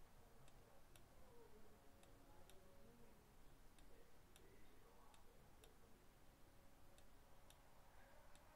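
Near silence: room tone with faint, light ticks coming about once or twice a second, not quite evenly spaced.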